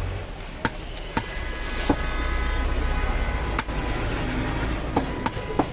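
Heavy butcher's cleaver chopping goat meat on a wooden log chopping block: about seven sharp knocks at irregular intervals, the loudest a little under two seconds in, over a steady low rumble.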